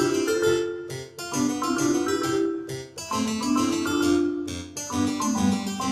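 Background music played on a keyboard instrument: a melody of pitched notes in short phrases.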